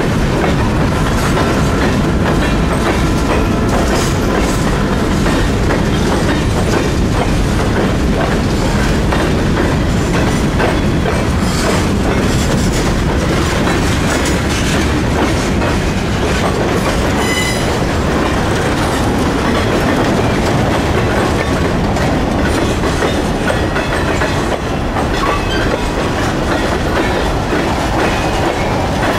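Freight cars of a Norfolk Southern train (covered hoppers, boxcars and tank cars) rolling past at close range, a steady loud rumble with the wheels clacking over the rails. A brief high wheel squeal rings out a little past halfway.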